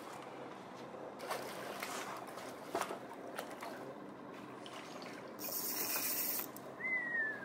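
Water splashing and lapping as a hooked fish is fought at the surface beside the boat, with a few sharp knocks and a louder rush of splashing about five and a half seconds in. A short falling squeak comes near the end.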